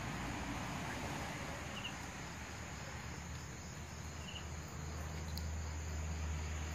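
Crickets chirping: a steady high-pitched trill over a faint low rumble.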